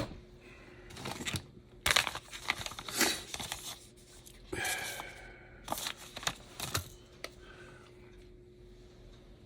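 Rummaging through small parts and packaging: scattered clicks, taps and short rustles, thinning out after about seven seconds, over a faint steady hum.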